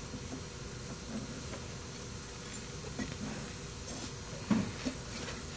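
Faint handling noises of hands working the drive belt back onto the transmission pulley of a Toro Personal Pace mower: a few light clicks and soft knocks of the metal parts, the most distinct about four and a half seconds in, over a low steady background hum.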